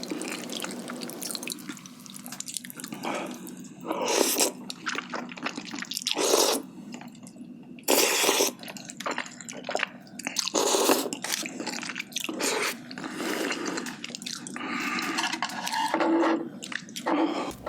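Wet chewing and mouth sounds of a person eating spicy jjimdak, Korean braised chicken with potato and glass noodles, coming in irregular bursts.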